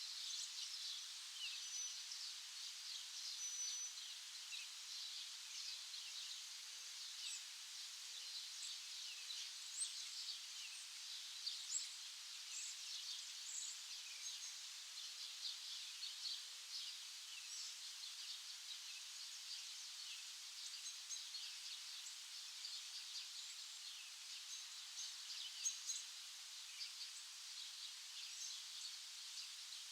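Many small songbirds chirping at once: dense, overlapping short, high chirps, with a brief steady whistled note near the start.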